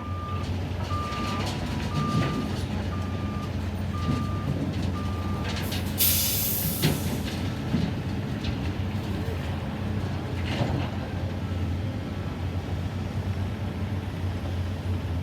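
Heavy construction machinery: a diesel engine running steadily while a backup alarm beeps six times, about two beeps a second, then stops. About six seconds in comes a loud hiss of released air, about a second long.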